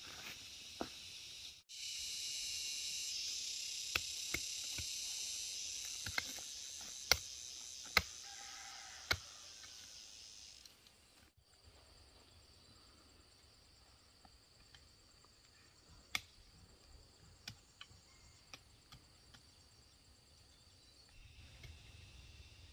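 Insects calling in a steady high shrill chorus, loud through the first half and fainter after an abrupt break, with scattered sharp knocks every second or so.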